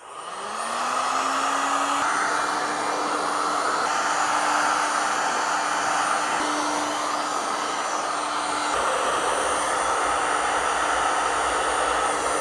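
Handheld electric heat gun switched on and running: its fan whine climbs in pitch over the first second or two, then holds as a steady hum under a constant rush of hot air.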